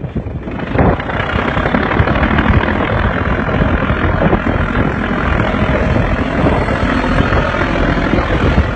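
A small fishing boat's motor running steadily, with wind rushing over the microphone.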